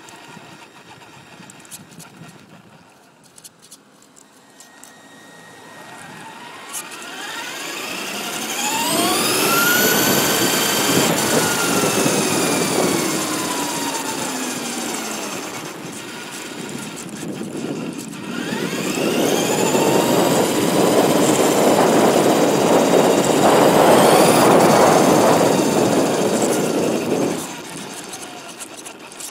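A Traxxas Stampede XL-5 RC truck's brushed electric motor and gears whine, rising in pitch as it speeds up and falling as it slows, twice, over loud rumble from its tyres on pavement. It is heard from a camera mounted on the truck. The sound is quieter in the first few seconds and stops shortly before the end.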